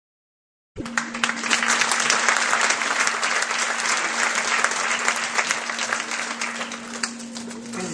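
Theatre audience applauding: dense clapping that starts suddenly about a second in and eases off a little toward the end, over a steady low hum.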